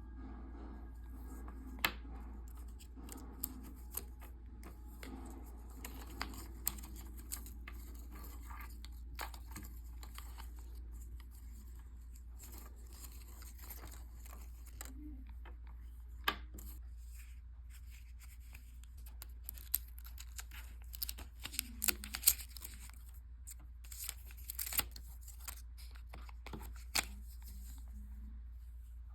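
Packaging of an Apple Magic Keyboard being handled during unboxing: paper and plastic torn and rustled, with scattered sharp clicks and taps that come thickest about two-thirds of the way through, over a steady low hum.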